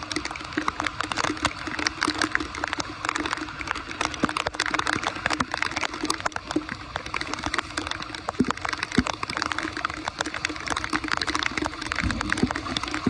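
Floodwater running and gurgling as it drains off a road through a cleared blockage, full of fine splashing and crackling.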